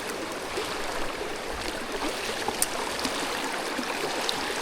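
Mountain stream running steadily, with one sharp click a little past halfway.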